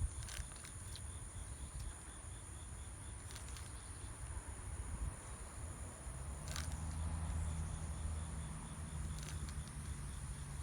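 Insects droning steadily at a high pitch, with a faint, evenly repeated chirp over the first few seconds. A low steady hum comes in about six seconds in.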